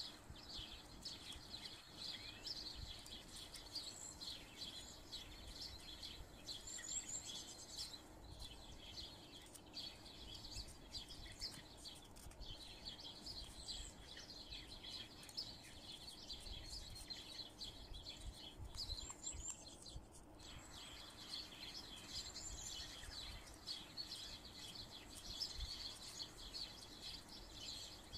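Many small birds chirping busily and faintly in the background, with a few quick rising calls. Soft low bumps come from paper being handled and folded on a table.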